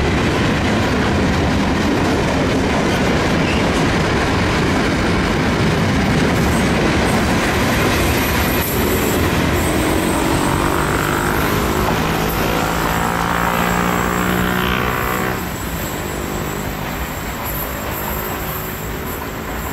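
Loaded steel-coil freight wagons rolling past at speed: steady rumble and clickety-clack of wheels on rail joints. A rising, many-toned whine builds in the middle and stops about fifteen seconds in, after which the train noise is slightly quieter.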